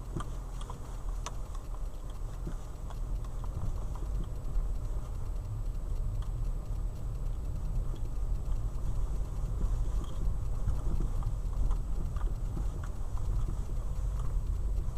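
Nissan Qashqai front suspension knocking: irregular clunks and taps over a steady low road rumble as the car is driven, the sign of a fault in the front suspension.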